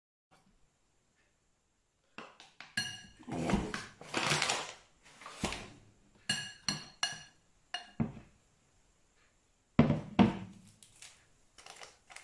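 A metal spoon clinking and scraping against a glass mixing bowl of flour, starting about two seconds in. The bowl rings briefly after the sharper hits, and a couple of heavier thuds come near the end as things are set down on the counter.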